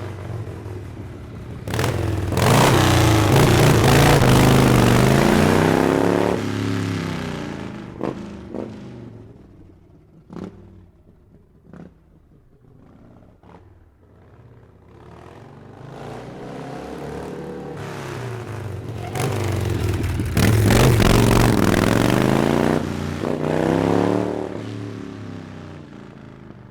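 Harley-Davidson V-twin motorcycle being ridden, its engine swelling to loud twice, from about two to six seconds in and again around twenty to twenty-four seconds, the pitch sweeping up and down each time. Between the two loud stretches it drops away to a faint engine sound with a few sharp clicks.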